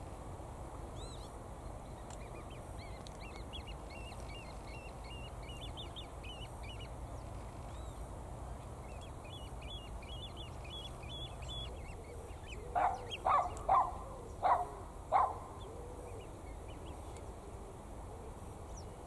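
Birds calling: thin, high chirps and twitters for most of the first twelve seconds, then five loud, short calls in quick succession over about two and a half seconds.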